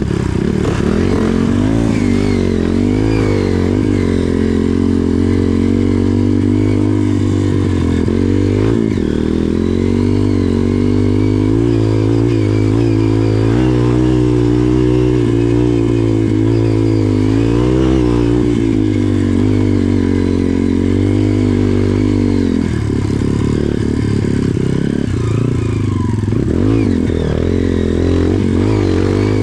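Off-road trail motorcycle engine running under load as it is ridden, its pitch rising and falling with the throttle.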